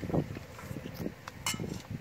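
Light clicks and a sharp metallic clink, with a brief ring about halfway through, of spoons against stainless steel bowls and crab shells as cooked crabs are picked apart and eaten.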